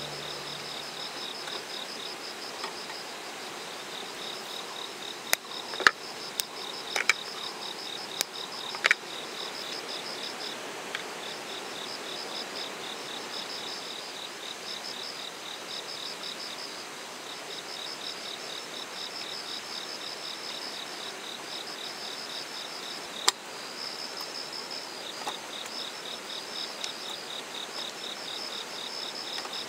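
Insects chirping in fast, pulsed trills at two pitches, going on and off throughout. A few sharp clicks break in between about five and nine seconds in, and once more near the two-thirds mark.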